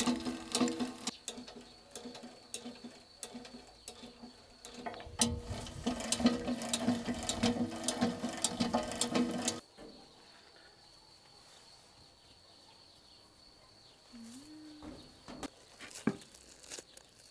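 Chain drive of a hand-cranked skewer grill rattling over its sprocket: a dense run of ticks and clatter that stops abruptly about nine and a half seconds in. After that only faint background remains, with a few soft clicks near the end.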